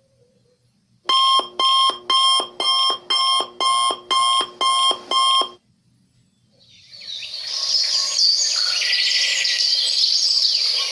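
Alarm clock sound effect: an electronic alarm beeping in rapid bursts, about two a second, which stop about five and a half seconds in. After a short gap, a chorus of birds chirping fades in.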